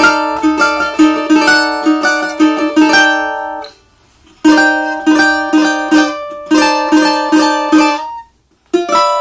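Brand-new cavaquinho with an imbuia body, strummed in quick rhythmic chords. The playing stops twice, about four seconds in and again near the end, and picks up again each time after a short pause.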